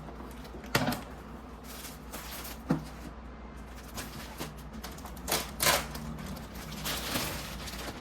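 Objects being handled: scattered knocks and clicks with short bursts of rustling, the loudest a knock about a second in.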